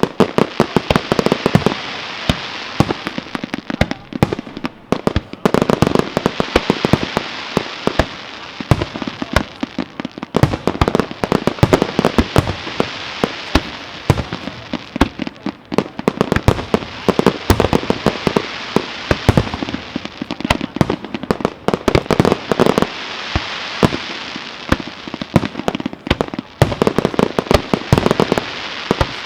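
Fireworks display: a dense, continuous barrage of sharp bangs and crackles from many charges going off in quick succession. It swells and eases in waves every few seconds.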